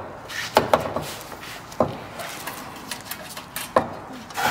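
Sharp metallic clicks and clinks, about six of them at uneven intervals, as a hand tool and a spring clamp knock against the joint of a titanium exhaust pipe while the clamp is being hooked into place.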